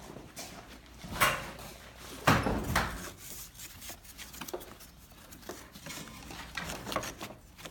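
Scattered knocks and rustles of hands working a snagged wire free around an ATV's plastic air box, with two louder clunks, about a second and two and a half seconds in.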